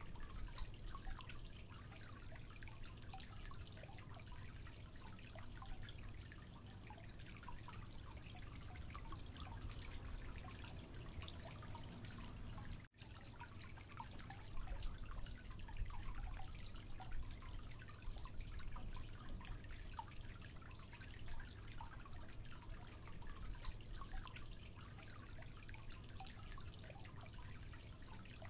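Faint, steady patter of small drips or crackles, like dripping water, cut off for an instant about 13 seconds in.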